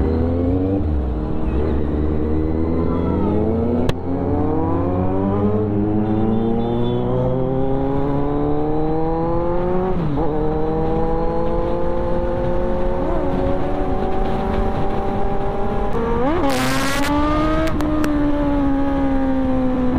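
Kawasaki Z900's inline-four engine and exhaust under acceleration, heard from the rider's seat. The pitch climbs in each gear and drops back at each upshift, about three times. Near the end there is a quick sharp blip of the revs.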